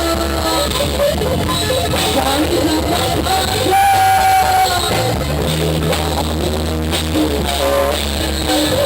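Rock band music with drum kit, bass and guitar, a melodic line winding over a steady beat, with one held higher note about four seconds in.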